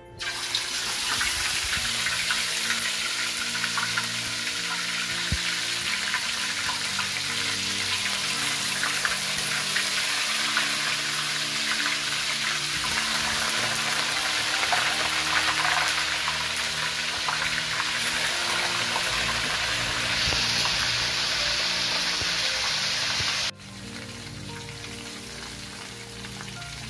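Raw chicken breast pieces deep-frying in hot oil in a wok: a loud, dense, steady sizzle that sets in abruptly at the start. A few seconds before the end it drops suddenly to a quieter sizzle.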